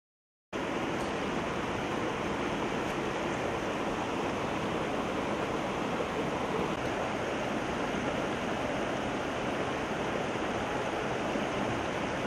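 Rocky mountain stream rushing over stones: a steady, even rush of water that cuts in suddenly about half a second in.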